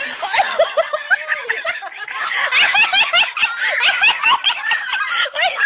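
Laughter: high-pitched giggling in quick, rapid bursts, getting louder about two seconds in.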